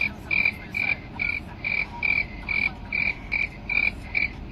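Railway level-crossing warning beeper sounding a steady run of short, high beeps, a little over two a second, the signal that a train is approaching the crossing.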